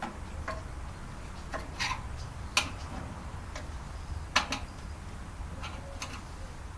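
Irregular clicks and taps of small parts and hand tools being handled while a Panasonic microwave is taken apart, with two sharper clicks about two and a half and four and a half seconds in, over a low steady hum.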